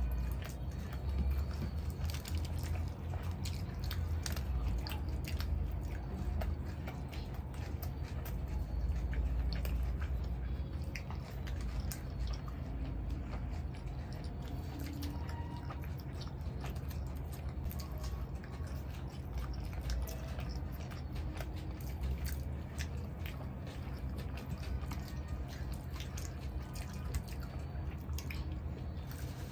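Close-miked eating by two people on soft masala chaap in gravy with naan: steady chewing and wet mouth smacks, with many small irregular clicks over a low rumble.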